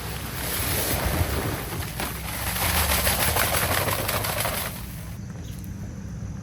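Dry concrete mix pouring out of a bag into a post hole, a grainy hiss that starts about half a second in and cuts off abruptly near the end. A steady low engine hum runs underneath.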